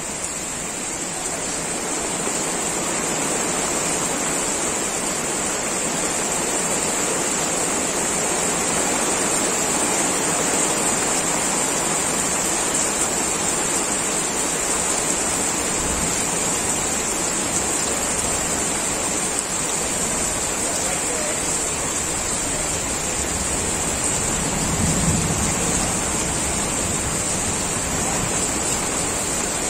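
Heavy rain pouring steadily, an even hiss. A low rumble swells briefly near the end.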